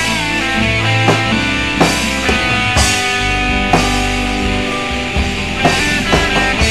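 Instrumental passage of a rock song with no singing: sustained guitar notes over bass and a drum kit keeping a steady beat.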